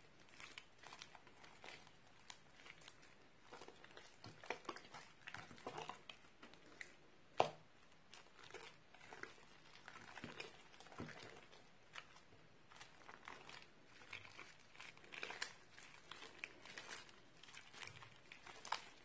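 Clear glue-and-dish-soap slime being kneaded, pressed and stretched by hand against a glass dish: faint, irregular sticky clicking and crackling, with one sharper click about seven seconds in.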